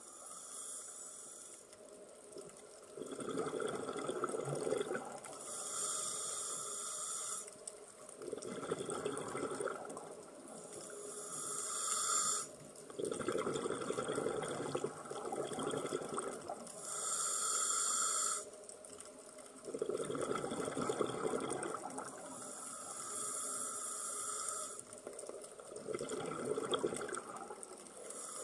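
Scuba diver breathing through a regulator underwater: a hissing inhale alternates with a bubbling rush of exhaled air, one breath about every five to six seconds.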